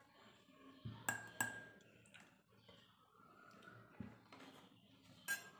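Steel ladle clinking against a ceramic bowl as flour is ladled in: a few light, sharp clinks, two close together about a second in and more near the end.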